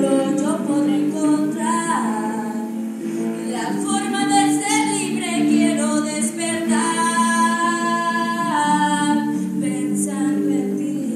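A woman singing live into a microphone over electric guitar accompaniment, her voice gliding between notes and holding one long note about two-thirds of the way through.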